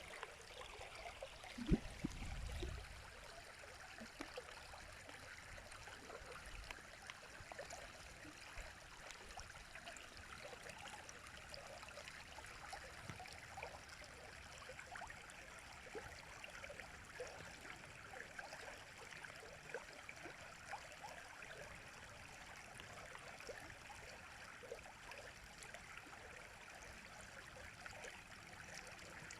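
River water flowing, a steady rushing with many small splashes. About two seconds in, a sharp low thump followed by a brief low rumble.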